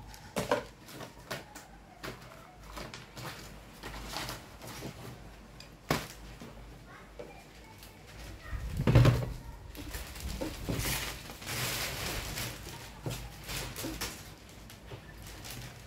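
Plastic bin and plastic bag handled while paper scraps are cleared off a wooden worktable: scattered knocks and clicks, a loud thump about nine seconds in, then a stretch of plastic-bag and paper rustling.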